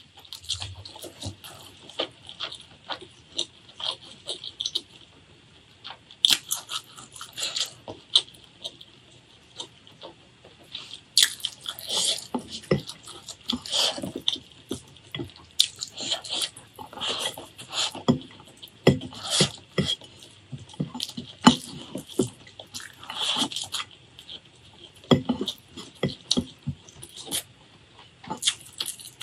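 Close-miked eating with the hands: fingers squishing and scooping curry-soaked rice off a plate, with wet chewing and lip smacks coming as irregular clicks and smacks.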